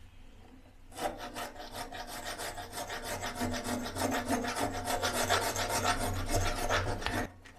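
Hacksaw blade sawing back and forth inside a broken iron tap's threaded stub lodged in the wall pipe, cutting one of four slits so the stub can be chipped out. The rapid strokes start about a second in and stop just before the end.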